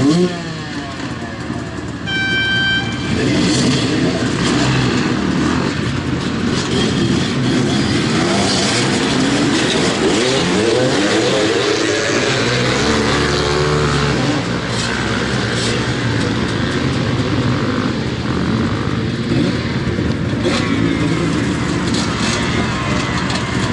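A short horn blast about two seconds in, then a row of dirt bikes revving and pulling away from a race start, many engines rising and falling in pitch over one another as the riders accelerate up the hill.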